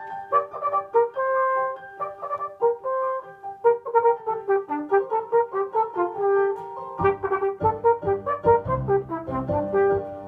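Solo flugelhorn playing a quick melody of short, detached notes, with piano accompaniment. About seven seconds in, fuller low piano chords come in under the horn.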